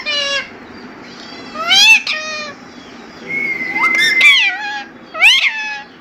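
Rose-ringed (Indian ringneck) parakeet giving meow-like calls that mimic a cat: several short, high-pitched rising-and-falling calls about a second or two apart, with a held whistle-like note about three and a half seconds in.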